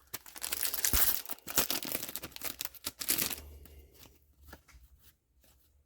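A trading card booster pack's wrapper being torn open and crinkled for about three seconds, then a few faint clicks and rustles.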